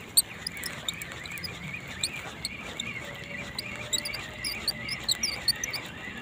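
Small birds chirping: many quick, high-pitched chirps come irregularly throughout, over a thin wavering tone and a low steady background hiss.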